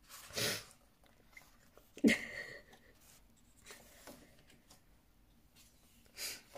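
Pages of a glossy photobook being turned and handled by hand. There is a short swish about half a second in, a sharp slap of paper about two seconds in (the loudest moment), and another brief swish near the end.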